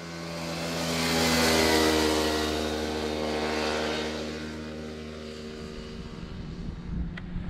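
Kawasaki Ninja 125's single-cylinder four-stroke engine riding past at a steady note, growing louder to a peak about a second and a half in, then fading as the bike pulls away.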